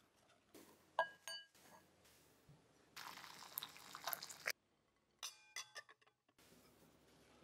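Hot water poured into a glass bowl, running for about a second and a half before cutting off abruptly. Sharp glass clinks that ring briefly come twice about a second in and again in a quick cluster after the pour.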